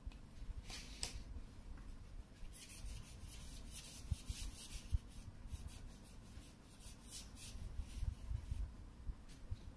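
A foam block is rubbed quickly back and forth across a cardboard tracing card, wiping marker off it. It comes as a run of soft scratchy strokes, starting about two and a half seconds in and fading out after about five seconds.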